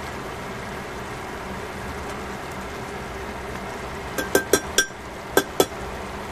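Steady hiss of a pork-and-vegetable stir-fry cooking in a stainless pan. About four seconds in, tongs click against the pan six times, a quick run of four and then two more.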